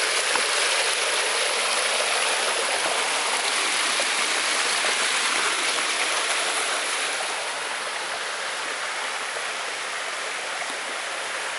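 Shallow rocky stream running over small cascades between boulders, a steady rush of water that grows a little quieter about seven seconds in.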